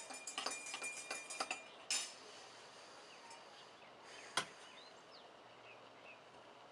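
Cutlery clinking against dishes through the first two seconds, then two sharp knocks, one about two seconds in and a louder one past four seconds, with faint high chirps in between.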